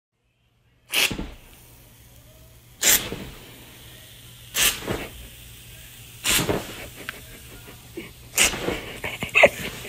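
An aerosol foam can spraying in five short, sharp bursts, one about every two seconds, as the foam is dispensed in blobs.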